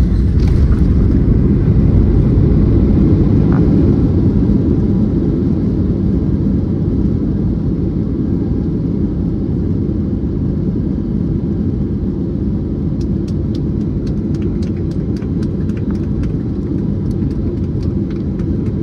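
Boeing 737 jet engines in reverse thrust during the landing rollout on a wet runway, heard from inside the cabin as a loud, steady low rumble. The rumble is strongest for the first few seconds, then eases a little as the aircraft slows. Faint ticks come in near the end.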